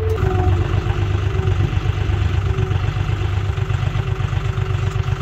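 John Deere 5405 tractor's three-cylinder diesel engine running steadily under load while pulling a subsoiler through the soil, a deep rapid pulsing with a steady engine note.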